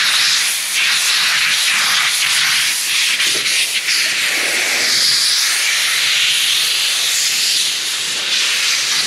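Compressed-air blowgun blasting a loud, continuous hiss that wavers a little, blowing dirt out of the O-ring groove of a military two-piece wheel so a new O-ring can be fitted.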